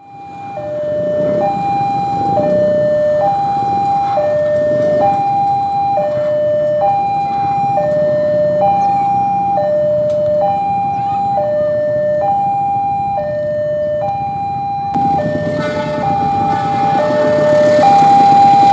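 Railway level-crossing warning alarm: an electronic two-tone chime alternating steadily between a higher and a lower note, each held just under a second. About fifteen seconds in, a louder background rumble joins the chime.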